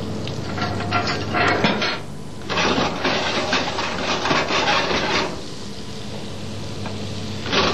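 Butter sizzling in a steel frying pan as it is browned, with the pan scraping and rattling on the gas burner's grate as it is swirled by the handle, in two long stretches and once more near the end.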